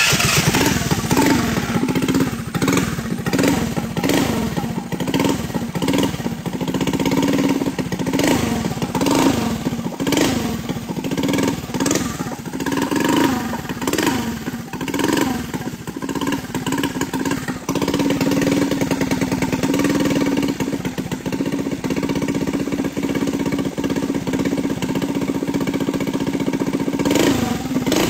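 Motorized stand-up scooter's small single-cylinder engine running just after a cold first start of the day, revved in short blips about once a second. Around the middle it holds a steady, higher speed for a few seconds, then the blips resume near the end.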